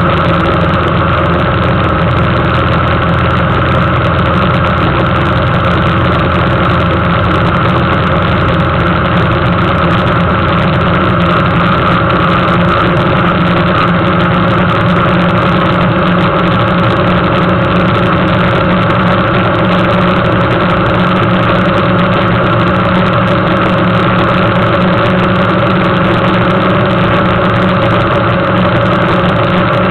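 Suzuki GSX750F motorcycle's inline-four engine running at a steady speed while riding along a road, a loud, even drone with no revving.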